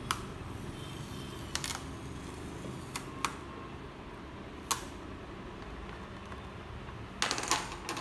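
Plastic clips of an HP laptop's bottom cover snapping loose as the cover is pried off with a screwdriver: sharp single clicks every second or so, then a quick run of several snaps near the end.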